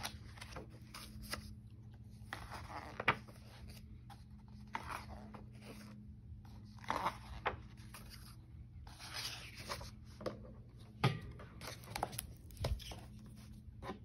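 Pages of a hardcover picture book being turned and rustling, with a few soft knocks as the book is handled and closed. A low steady hum runs underneath.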